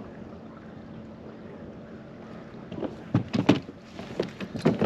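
Steady low wind and water noise, then from about three seconds in a quick series of sharp knocks and clunks as the angler moves and handles gear in a plastic fishing kayak.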